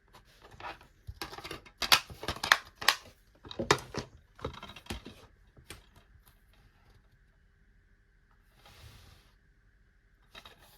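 DVD packaging and cases being handled: a quick flurry of clicks, snaps and crinkling for about four seconds, then a soft rustle and a single click near the end.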